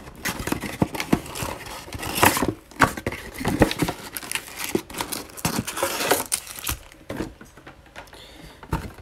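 A cardboard trading-card mega box is torn open and its foil-wrapped card packs slide out, crinkling and rustling, then are set down on a table. It is a run of irregular crackles and taps, quieter near the end.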